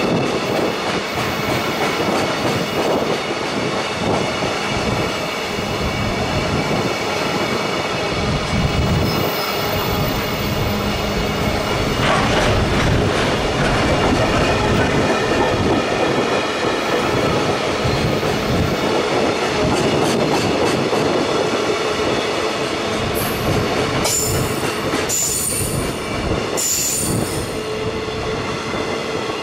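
Freight train rolling past at speed, a steady loud rumble of wheels on rail with thin, high wheel-squeal tones running through it and a few sharper clicks near the end.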